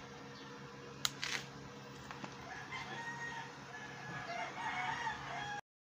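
A rooster crowing, from about two and a half seconds in until the sound cuts off suddenly near the end. A single sharp click comes about a second in.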